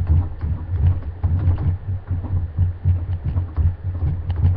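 Instrumental break in the song's accompaniment: a steady low pulsing beat, about two pulses a second, with light clicks over it and no singing.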